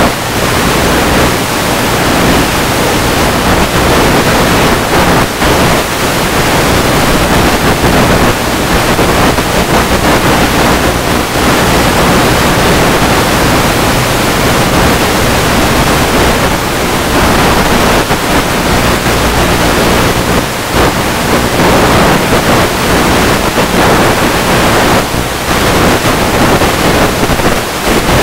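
Loud steady rushing noise of air over a camera on board a Multiplex EasyStar 2 RC plane in flight, with a low steady drone underneath from its electric motor and propeller.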